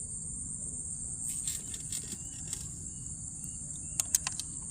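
Insects chirring in a steady high-pitched drone over a low steady rumble, with a few faint clicks.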